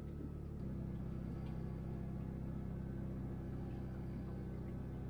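Steady low machine hum aboard a small pilothouse boat, a droning tone with several pitches stacked together, stepping up slightly in level about half a second in.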